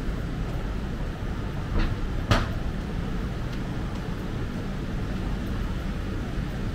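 City street ambience: a steady low rumble of traffic, with two sharp knocks close together about two seconds in, the second louder.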